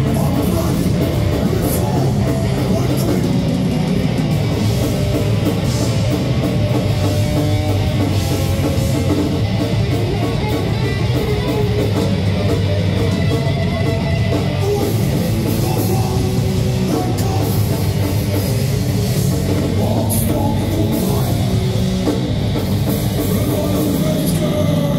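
Live metal band playing loud and without a break: distorted electric guitar, bass guitar and drum kit.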